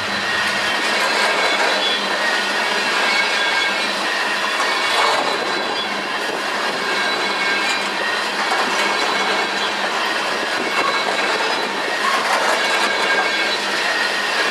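Freight train cars rolling steadily past, with steel wheels running on the rails and a faint high wheel squeal.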